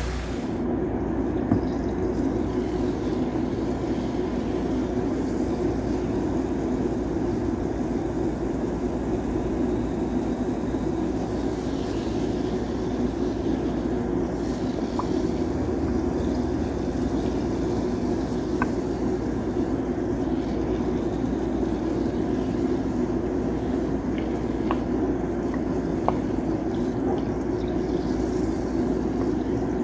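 A steady, even low hum that does not change, with a faint tick now and then.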